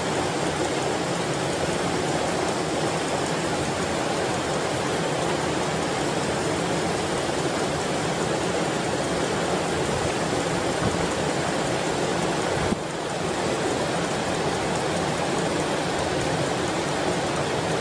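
Steady, even rushing noise like flowing water, with a brief dip about thirteen seconds in.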